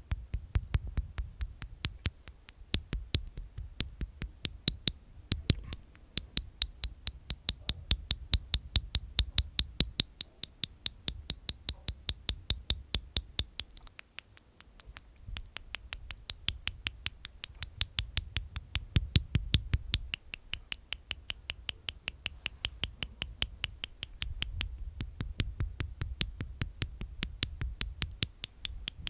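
Close-miked ASMR mouth sounds made inside the mouth: rapid wet clicking, about four clicks a second, with a short pause about halfway through and a low rumble underneath at times.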